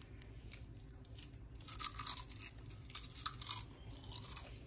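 Crisp beetroot chips crackling and crunching in short, irregular bursts.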